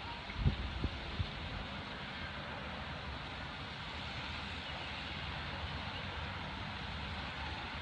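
A compressor running with a steady noise. A few low thumps come in the first second or so.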